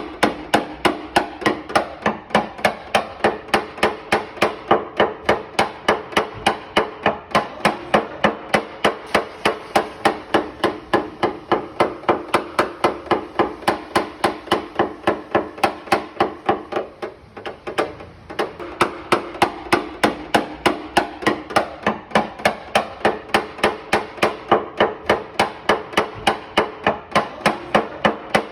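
Paintless dent repair tapping: a small hammer and knockdown punch tapping the sheet metal of a Chery's trunk lid in a steady rhythm of about three taps a second, each with a short metallic ring. The taps pause briefly about two-thirds of the way through.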